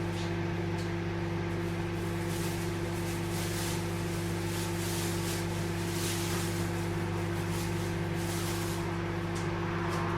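Microwave oven running: a steady low electrical hum with fan whir, and a soft hiss higher up that comes and goes.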